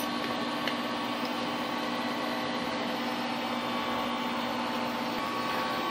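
Steady machine hum, holding one even pitch with higher overtones throughout, with a single light metallic click at the start as a spanner is worked on the spindle's jam nut.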